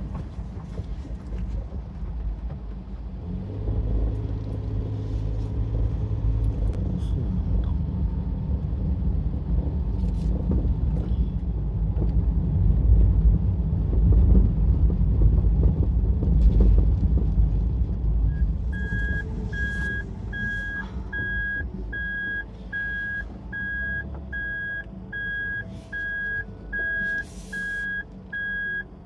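Panel van's engine running with a steady low rumble that grows louder for a while, then eases off. About two-thirds of the way through, a steady electronic beep starts, repeating just over once a second, like a vehicle's reversing warning.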